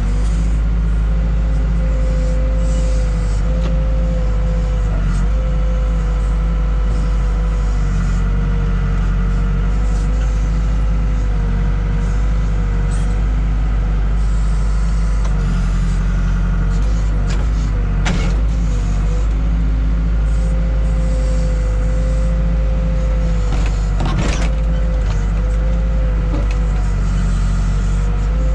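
Case 580K backhoe's four-cylinder diesel engine running steadily at raised throttle while digging, with a wavering whine over it. Two sharp metallic clanks come from the digging gear, one about two-thirds of the way in and another about six seconds later.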